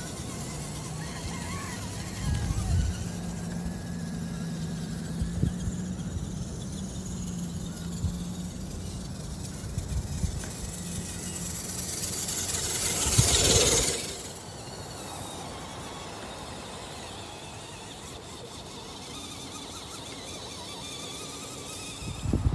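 Whine of an RC rock crawler's brushed electric motor and gears as the truck drives through beach sand. About halfway through, a hiss swells up and then cuts off suddenly.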